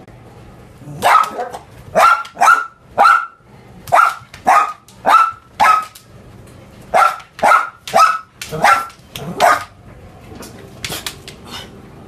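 Chinese Crested dog barking in short, sharp, high-pitched barks, about thirteen in two quick runs, then a few fainter yaps near the end.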